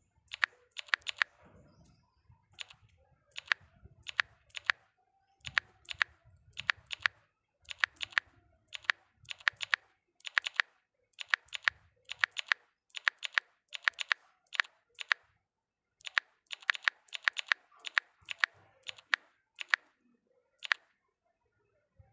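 Quick, sharp clicks in small irregular clusters of two to four, with short pauses between, stopping about a second before the end.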